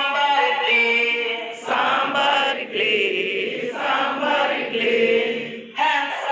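A group of adult voices singing a chanted action rhyme together in unison, breaking off briefly near the end before carrying on.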